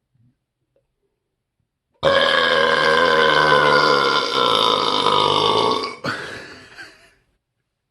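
A man's single long, loud burp. It starts abruptly about two seconds in, lasts around four seconds with its pitch sinking slightly, then trails off.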